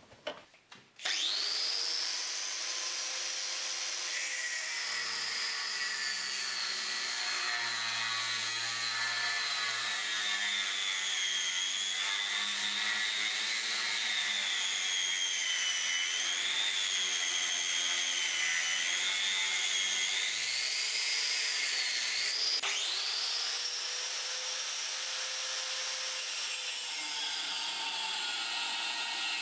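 Small angle grinder with a cutting disc spinning up about a second in, then cutting notches into steel angle iron clamped in a vice. Its high whine sags and wavers in pitch as the disc bites into the metal. About three-quarters of the way through the whine dips, then climbs back up before the grinder cuts on.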